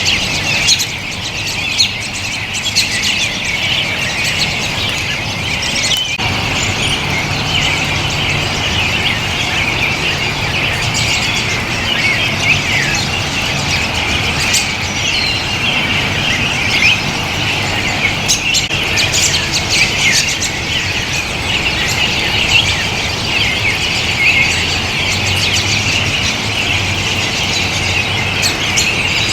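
A large flock of American robins calling, many short chirps and squeaky calls overlapping into a continuous busy chatter. A low steady hum sits beneath it at times.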